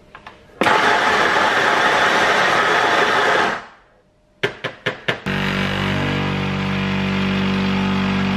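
Sunbeam burr coffee grinder grinding beans into an espresso portafilter for about three seconds, then a few sharp knocks and clicks. Then the espresso machine's pump hums steadily while the shot pours, cutting off suddenly at the end.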